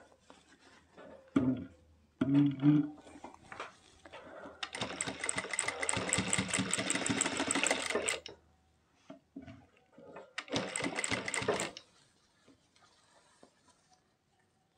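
Jack industrial sewing machine stitching through fabric in runs: a few short bursts in the first seconds, a steady run of about three seconds in the middle, and a second shorter run about eleven seconds in.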